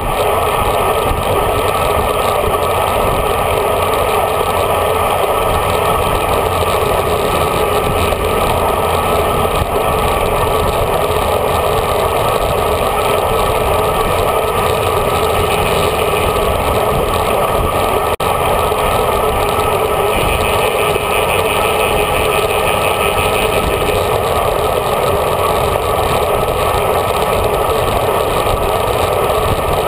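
Steady rush of wind and road noise from a road bike riding at speed, picked up by a handlebar-mounted GoPro inside its housing, which muffles it into a dull, even roar.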